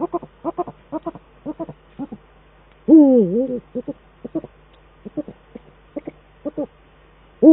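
Eurasian eagle owls calling in a courtship duet: a run of short clipped hoots, a few a second, broken about three seconds in by a longer wavering call, with another long wavering call starting at the end.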